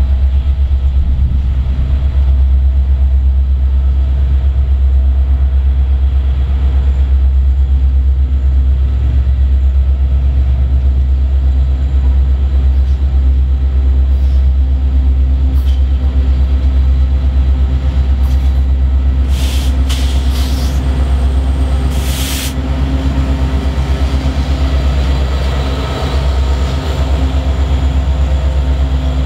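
Freight train led by EMD SD70 diesel locomotives approaching and then passing close by, a loud continuous low rumble of engines and rolling wheels. A few brief sharp squeals or clicks come about two-thirds of the way through.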